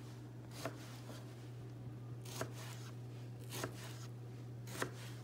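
Kitchen knife slicing through a tomato, its blade tapping the plastic cutting board four times in about four seconds, over a steady low hum.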